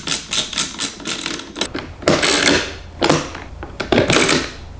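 A hand screwdriver clicking quickly, about five clicks a second, as Torx screws are tightened into the plastic speaker mount of a car door panel. Then come three louder knocks, about two, three and four seconds in.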